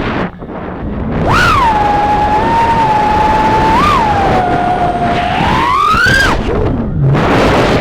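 3-inch FPV quadcopter's brushless motors and propellers whining, the pitch swooping up with throttle punches about a second and a half in and again near six seconds, then falling away as the throttle is cut near the end.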